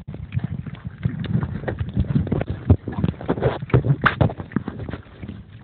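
Rapid, irregular knocks and rubbing with a low rumble, loudest about three to four seconds in: a phone in a waterproof pouch being handled in the water while snorkeling.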